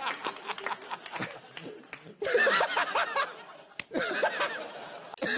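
A man laughing in several bouts: quick pulsing laughter for the first two seconds, then louder laughter breaking in suddenly about two seconds in and again about four seconds in.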